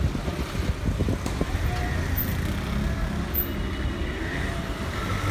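Road traffic on a busy street: vehicle engines running close by as a steady low rumble, with a few short clicks about a second in.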